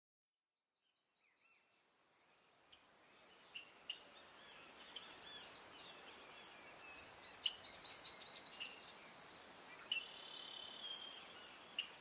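Small birds chirping over a steady high-pitched hiss, fading in over the first few seconds; a quick run of repeated chirps comes a little past the middle.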